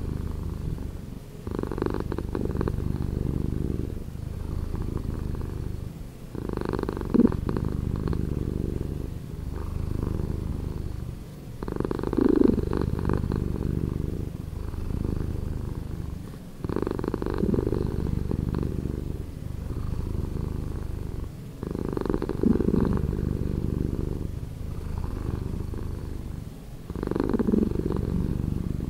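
A domestic cat purring, slowed down: a steady low purr that swells in a regular cycle about every five seconds.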